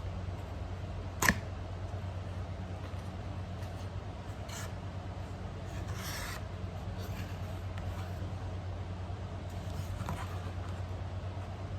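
Light stick packaging being handled and opened: a sharp click about a second in, then scattered rustles and scrapes, over a steady low hum.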